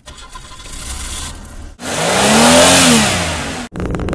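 Car engine started with the ignition key and running, then revved once, its pitch rising and falling over about two seconds; near the end it runs on steadily.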